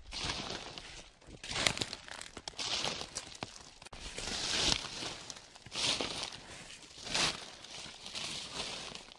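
Footsteps crunching and crackling through a thick layer of dry fallen leaves at a slow, steady walking pace, about one step every second and a half.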